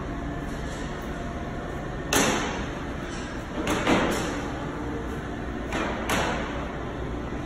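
EJ200 heavy industrial tug under test, a steady low hum with a series of sharp thumps and clanks, the loudest about two and four seconds in.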